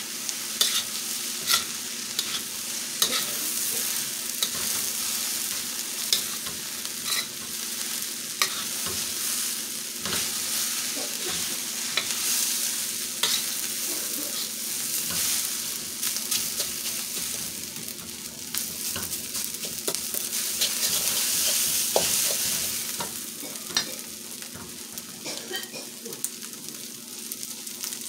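Rice and shredded cabbage sizzling in a hot steel wok while a metal wok spatula scrapes and taps the pan in an irregular clatter. The sizzle swells about twenty seconds in, then eases.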